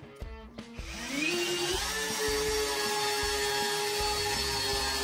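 Einhell TP-CD 18/60 Li BL brushless cordless drill driving a 150 × 6 mm screw into a wooden beam. The motor whine rises as it spins up about a second in, then runs steady and loud under load.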